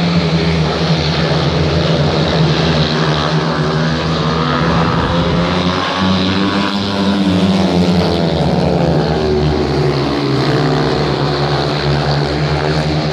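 A pack of speedway motorcycles, each with a 500cc single-cylinder methanol-fuelled engine, racing flat out around the shale track. Their engines run at high revs and rise and fall in pitch as the bikes go through the bends.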